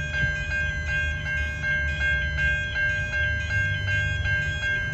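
Level crossing's Siemens Type 3 electronic bells ringing in a fast even rhythm, about four strokes a second, over the low rumble of a train moving off.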